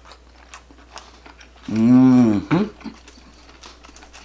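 A man's drawn-out wordless 'mmm' of enjoyment while eating, rising and falling in pitch, about halfway through. Faint small clicks and smacks of eating come before and after it.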